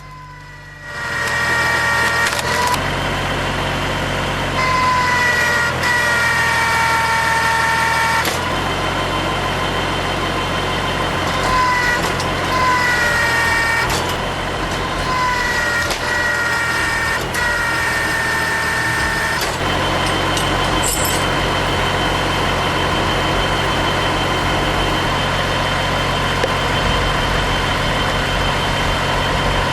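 Heavy wood splitter's engine and hydraulics running steadily, with a high whine that dips in pitch again and again as the machine takes load, then holds level for the last ten seconds or so.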